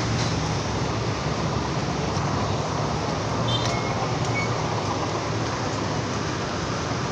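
Traffic on a flooded street: vehicle engines running with a low steady hum under a continuous rush of water.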